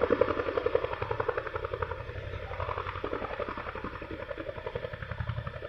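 Chinook tandem-rotor helicopter's rotors beating in a rapid, even chop, easing a little in loudness towards the end.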